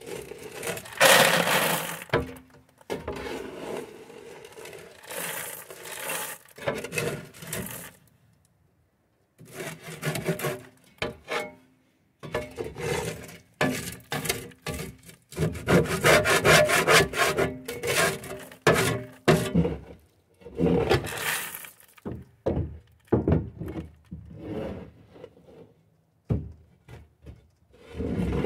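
Shovel scraping leftover feed out through the metal chute of a homemade wooden bulk feed bin, the feed spilling into a plastic bucket. The scraping comes in repeated strokes with a couple of short pauses.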